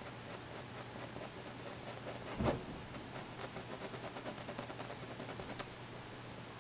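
Paintbrush stroking oil paint onto canvas in quick short strokes, a run of small scratchy ticks, over a steady low hum. A single dull thump comes about two and a half seconds in.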